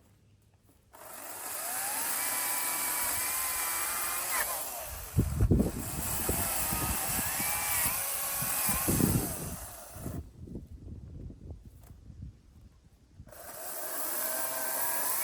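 Petrol chainsaw revving up about a second in and cutting into a fallen gum tree, its pitch sagging under load, with a few heavy low thuds. It drops back to near quiet for a few seconds, then revs up again near the end.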